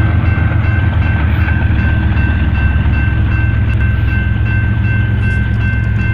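BNSF coal train rolling past at close range: diesel-electric locomotives give way to coal hopper cars, with a steady low rumble of engines and wheels and a steady high tone over it.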